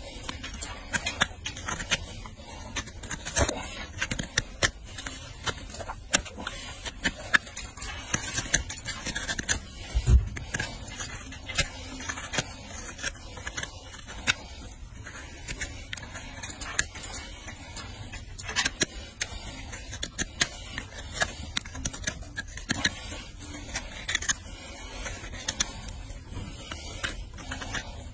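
Hoof knife paring and scraping the sole and frog of a small horse's hoof: repeated short scraping cuts at an irregular pace. There is a low thump about ten seconds in.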